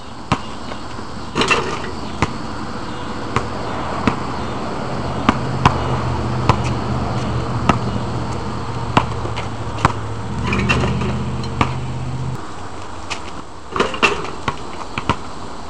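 A basketball bouncing on an asphalt court, sharp single bounces every second or so. Near the end the rim and backboard rattle as a player dunks and hangs on the rim, one of three louder bursts. A low steady hum runs underneath and stops about twelve seconds in.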